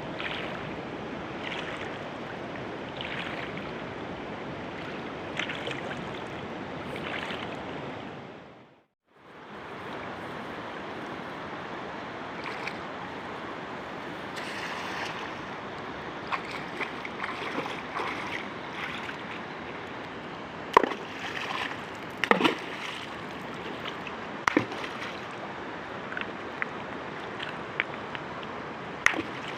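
Steady rush of flowing river water, cut off briefly about nine seconds in, with a few short sharp sounds in the second half.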